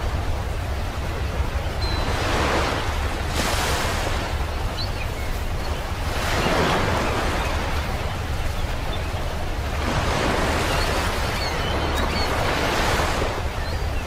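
Sea waves breaking and washing up a sandy beach, swelling and falling back about every three to four seconds over a steady low rumble.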